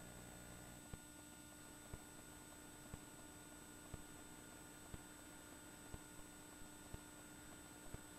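Near silence: a faint steady hum, with a faint click about once a second.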